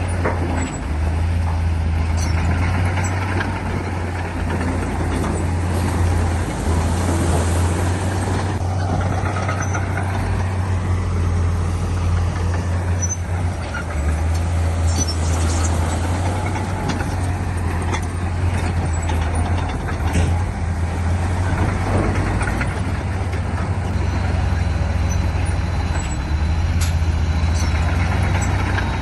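Heavy diesel earthmoving machinery running steadily under load, its deep engine note shifting now and then, with a few short knocks.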